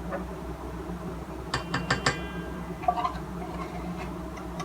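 Four quick clinks of a utensil against a kitchen bowl, about a second and a half in, the last ones ringing briefly.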